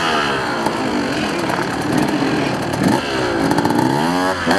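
Enduro motorcycle engine being ridden hard, its revs rising and falling several times as the rider opens and closes the throttle and shifts gear.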